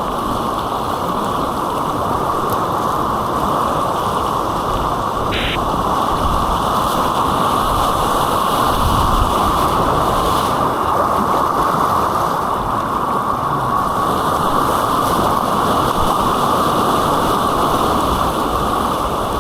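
Steady rush of white-water rapids heard close up.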